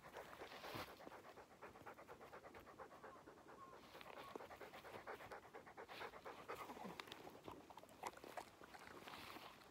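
English Setter panting quickly in short, even breaths, faint.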